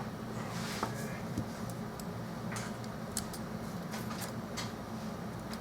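Scattered faint light clicks and taps of small repair tools working on an iPhone 4S's internal parts, over a steady low hum.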